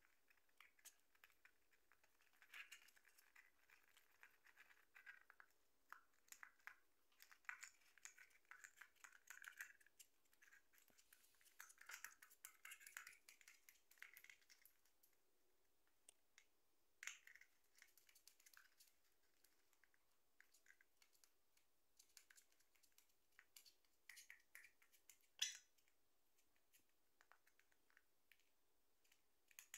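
Faint scratching and tearing of paper and cardboard as a lovebird picks and shreds it with its beak, in irregular short bouts with scattered small clicks and one louder click late on.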